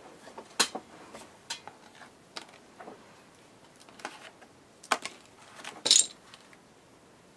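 Scattered clicks, taps and light clinks of small craft supplies (a small bottle and paper pieces) being picked up and set down on a work table. The loudest comes about six seconds in.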